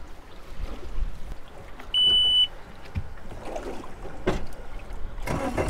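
Boat motor's warning buzzer giving one steady, high beep about half a second long as the ignition is switched on, followed by a few light clicks. Near the end the motor, which has been giving trouble, starts up.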